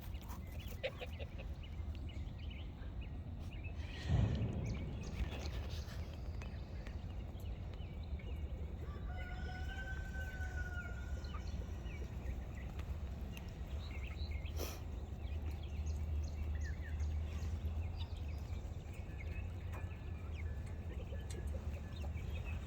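Cornish cross meat chickens peeping and calling softly as they forage, over a steady low rumble. A thump comes about four seconds in, and one longer drawn-out call about ten seconds in.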